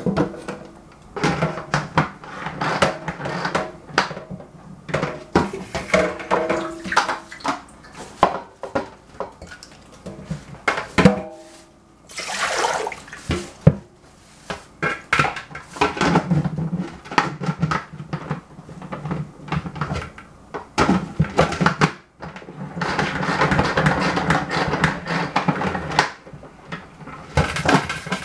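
A metal spoon scraping and clinking against a stainless steel mixing bowl as a couscous salad is tossed. There are many irregular knocks, a few brief rings from the metal, and several stretches of steady rushing noise, the longest near the end.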